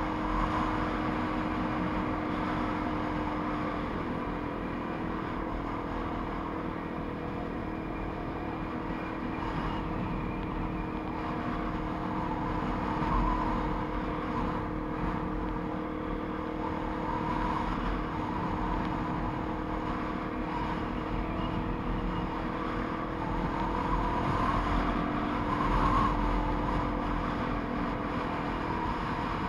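Motorcycle engine running at a steady cruise, heard from the bike itself, with wind noise on the microphone. The engine note shifts slightly about four seconds in and again near the end.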